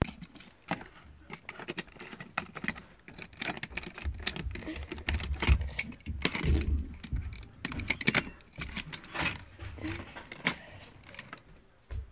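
Plastic clicks and rattles, many and irregular, from a Hot Wheels Downtown Power Plant Blast playset and a toy car being worked by hand, with low rumbles about four to seven seconds in.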